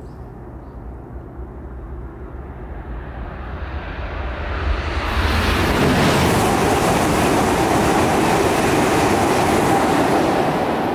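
E5 series Shinkansen passing through the station at about 300 km/h without stopping. A rushing noise builds as it approaches, turns loud about five seconds in as the nose goes by, and holds steady while the cars sweep past.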